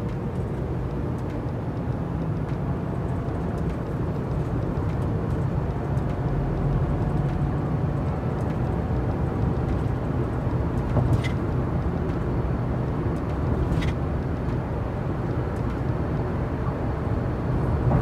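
Steady road and tyre noise inside a moving car's cabin, with two faint ticks about three seconds apart.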